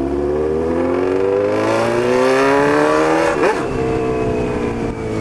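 Honda CB1000's inline-four engine, loud, accelerating with its pitch climbing steadily for about three seconds, then a brief break at an upshift and a steady, slightly falling note after.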